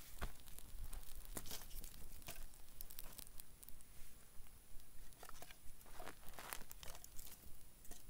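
Small campfire of dry twigs crackling with irregular sharp pops as it catches, while sticks are laid on it.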